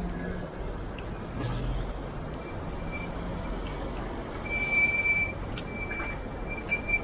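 A large truck's engine rumbling in street traffic, with a short hiss of its air brakes about a second and a half in. A thin high-pitched squeal sounds in the second half.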